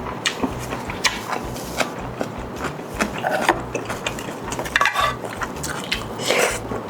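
Close-miked eating of spicy ramen and grilled chicken: chewing with wet mouth clicks, several short slurps and an occasional clink of utensils.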